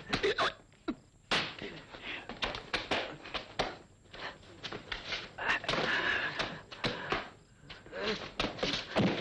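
A scuffle between two men: irregular thuds and knocks of blows and bodies hitting things, with scraping and shuffling in between.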